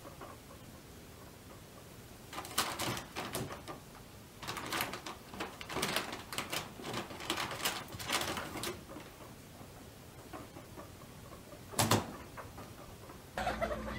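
Baby guinea pigs moving about a bedding-lined pen: scattered bursts of rustling and scrabbling, and one sharp knock near the end.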